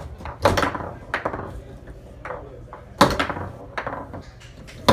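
Foosball game in play: the ball struck by the players' figures and knocking against the table, several sharp knocks at irregular intervals, each with a short ring.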